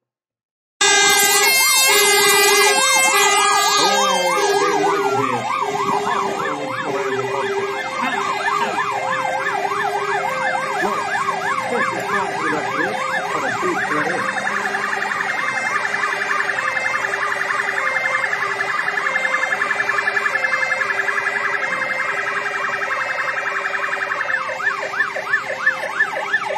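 Several fire-engine sirens sounding at once: fast rising-and-falling wails layered over a two-tone hi-lo siren. One siren winds down about four seconds in.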